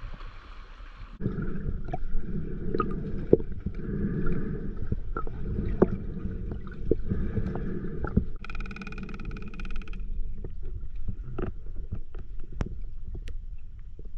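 Underwater sound picked up through a diving camera's housing: a muffled low rush of water with scattered clicks and knocks. A short buzzing hum comes in about two-thirds of the way through.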